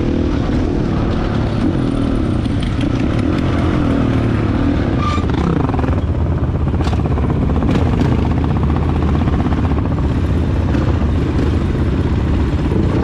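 Dirt bike engine running steadily at speed during a ride, loud throughout, with a few short clicks and rattles.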